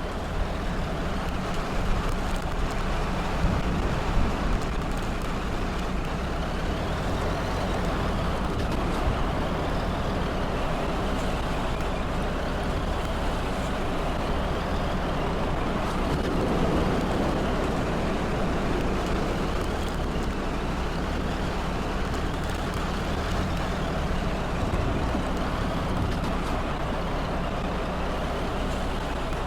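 Steady road and engine noise of a moving vehicle, a constant low rumble.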